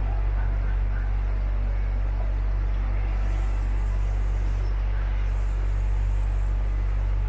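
Tourist boat's motor running steadily, a constant low drone with a faint haze of noise above it.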